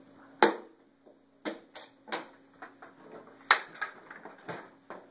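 Sharp clicks and knocks of a metal-framed folding portable solar panel being handled: its clips undone and the two halves swung open on their hinges. About eight separate clicks, the loudest about half a second in and about three and a half seconds in.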